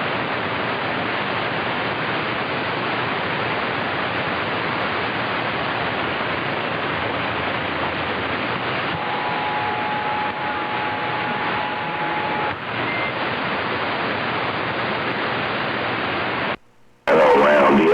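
Steady hiss of AM receiver static from a CB radio on an open channel with no station transmitting. A faint steady whistle from a carrier comes in about halfway and stops a few seconds later. The hiss cuts out abruptly near the end.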